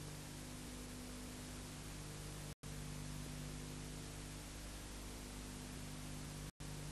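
Steady hiss with a low electrical hum, the noise floor of an old videotape recording with no programme sound. The audio drops out for an instant twice, about two and a half seconds in and near the end.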